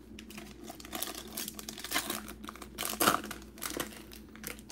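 Foil trading-card pack wrapper crinkling and crackling as it is torn open by hand, loudest about two and three seconds in.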